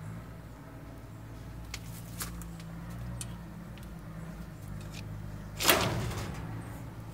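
Battery rabbit hutches clicking a few times, then one loud knock about three-quarters of the way through, over a steady low hum.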